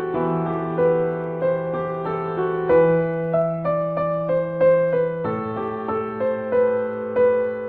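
Background music: a slow keyboard melody of separate notes over a held low note, the low note changing about five seconds in.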